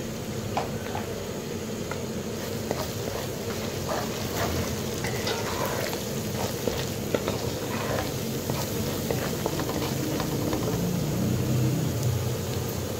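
Onion-tomato masala frying in hot oil in a metal pot: a steady sizzle, while a steel spoon stirs in freshly added ground spices, clicking and scraping against the pot.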